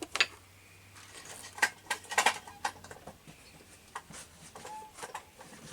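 Light clicks and knocks from handling a sewing machine and its foot pedal, coming at irregular times, with a faint low hum through the first few seconds.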